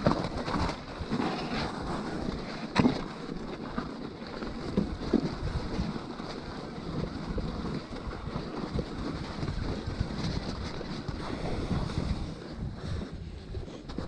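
Electric mountain bike ridden over a snowy trail: a continuous rumble of plus-size tyres rolling through snow and wind buffeting the microphone. Sharp knocks and rattles of the bike come over bumps, the loudest about three seconds in.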